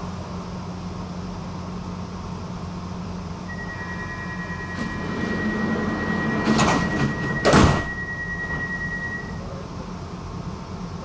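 Metro carriage doors closing at a station: a steady high warning tone sounds for about six seconds. The sliding doors shut with two sharp knocks near the middle, the second the louder, over the steady hum of the carriage.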